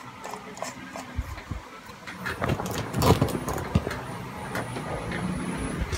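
A motor vehicle's engine running steadily in the background, a low rumble, with a few sharp knocks about three seconds in.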